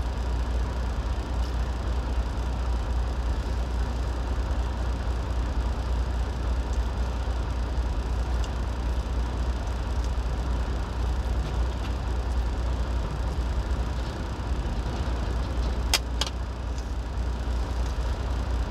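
Semi-truck idling: a steady low rumble heard inside the cab. Two sharp clicks come about sixteen seconds in.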